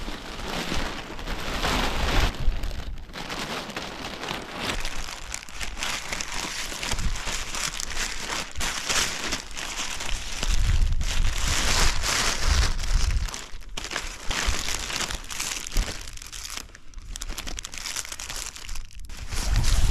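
Crinkling and rustling of packaging handled by gloved hands: nylon glider bags and clear plastic packets being pulled, opened and turned over, in an irregular run of crackles. A low rumble comes in about halfway through.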